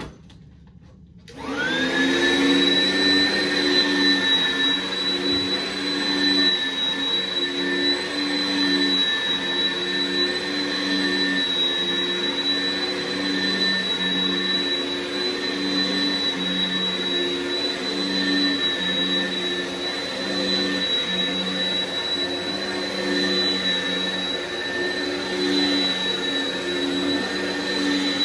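Oreck commercial upright vacuum cleaner switched on about a second in, its motor spinning up to a steady high whine, then running as it is pushed back and forth over carpet.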